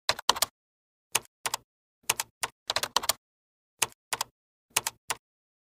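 Typing sound effect: about twenty sharp keyboard clicks in small irregular groups, with dead silence between them.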